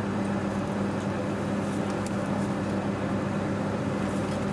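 Joetsu Shinkansen 200 series train running, heard from inside the passenger car: a steady ride rumble with a constant low hum.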